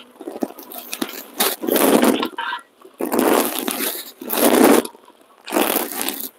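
A ladle scooping cooked vegetables from a pot and tipping them into a blender jar: about three bouts of scraping against the pot and wet sloshing and plopping into the jar.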